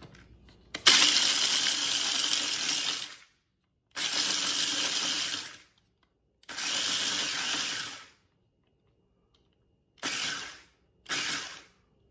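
Mini food processor grinding garlic croutons into crumbs, run in pulses: one run of about two and a half seconds, two of about a second and a half, then two short pulses near the end, with silence between.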